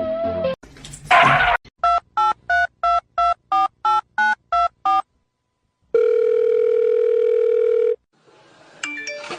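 A brief burst of noise, then a telephone keypad dialing: about eleven short touch-tone beeps at roughly three a second. After a pause comes a steady phone tone lasting about two seconds.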